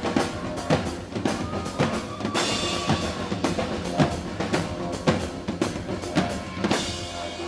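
Live band music driven by a drum kit played hard, with kick and snare hits about three a second over a sustained backing.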